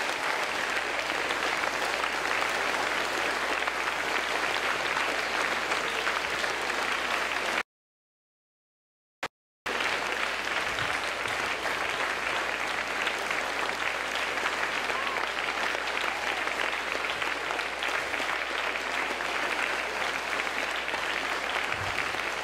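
An audience applauding steadily. The sound drops out to complete silence for about two seconds partway through, then the applause carries on.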